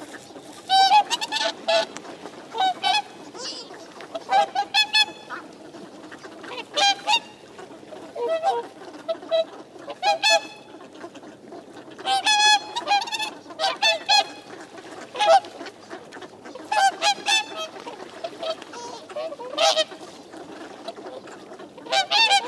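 Whooper swans calling: loud honking, bugle-like calls, several in quick succession every second or two, from many birds at once.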